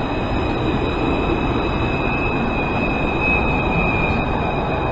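Alstom Citadis 403 tram passing close by: a steady rumble of steel wheels on rail with a thin, high, steady tone that grows stronger around the middle.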